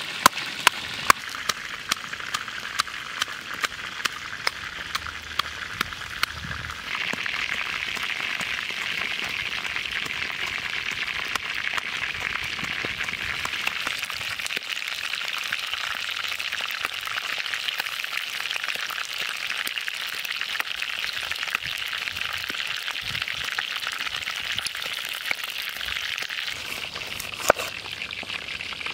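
A stone mortar and pestle pounding red chillies, with sharp knocks about twice a second. About seven seconds in, this gives way to chicken thighs frying in hot oil, a steady sizzle that carries on until near the end. Near the end a knife chops through a lime on a wooden board.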